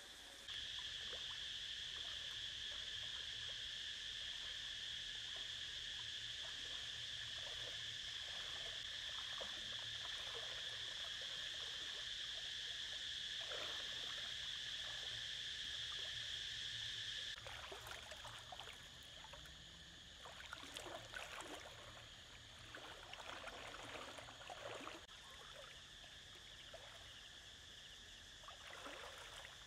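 A steady, high-pitched insect drone that cuts off abruptly about 17 seconds in. After it, irregular swishing and splashing of river water as a person wades through the shallows.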